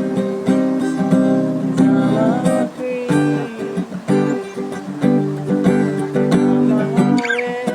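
Acoustic guitar strummed, chords ringing out with regular strokes.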